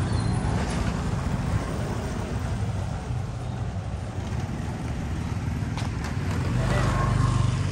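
Motor scooter engines running on the street close by, a low steady hum that grows louder near the end as one passes.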